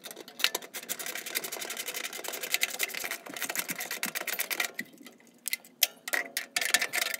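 Ratchet wrench clicking rapidly as it tightens bolts on a gas water heater's pilot assembly, a fast run of clicks for about four and a half seconds, then a few scattered clicks and knocks.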